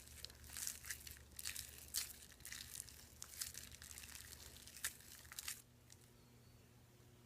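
Soft, irregular crackling and squishing of slime being mixed with snow powder and water, in short uneven strokes. It cuts off suddenly about five and a half seconds in.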